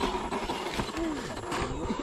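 Small brushless electric motor and three-gear transmission of a 1/10-scale RC crawler whining as it drives, the pitch rising and falling with the throttle.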